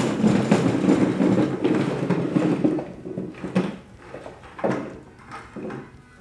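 A bucket of freshly dug potatoes dumped out onto a table: a rumbling tumble of potatoes for about three seconds, then a few separate thuds as single potatoes roll and drop.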